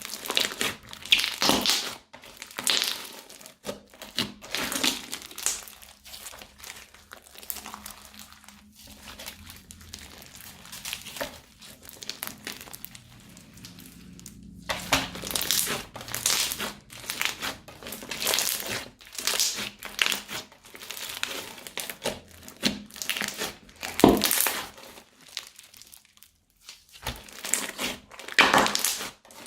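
Crunchy slime and plastic piping bags being squeezed and handled: irregular crinkling and crackling in bursts of a second or two with short pauses, one sharp crackle louder than the rest late on.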